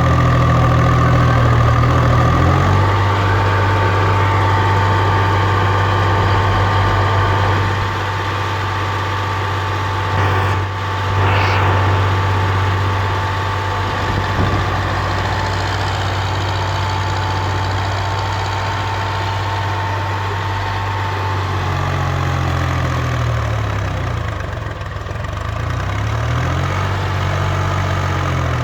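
Heavy diesel machinery engine running at low revs, its pitch shifting about three seconds in and rising and falling from about twenty-two seconds on as the throttle changes. A thin steady whine runs alongside it for most of the middle part.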